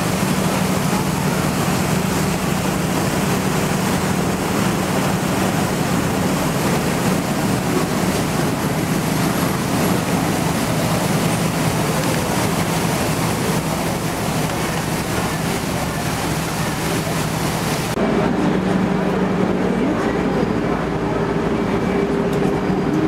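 A canal tour boat's engine running steadily: a low hum under a broad rushing noise. About 18 s in the sound changes abruptly to a fuller hum with several steady tones and less hiss, inside a vaulted canal tunnel.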